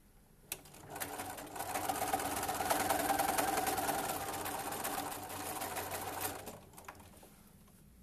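Electric sewing machine stitching a seam through a pair of fabric wedges: a click, then the machine runs for about five and a half seconds, picking up speed at the start and stopping near the end.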